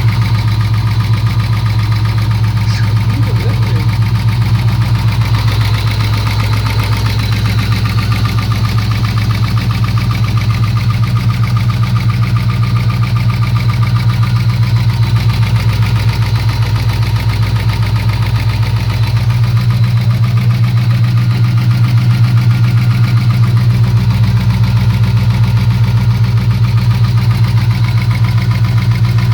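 LS1 Camaro's 5.7-litre V8 idling steadily, with the engine knock that the owner is recording. The idle gets a little louder about two-thirds of the way through.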